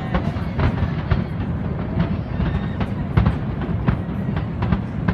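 Fireworks display: irregular bangs and crackles, one after another, over a continuous low rumble, with crowd voices.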